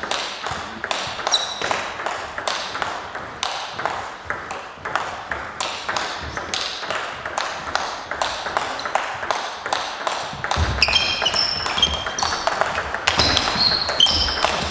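Table tennis balls clicking off bats and tables in a dense run of sharp ticks. In the last few seconds, during a rally, shoes squeak on the sports hall floor.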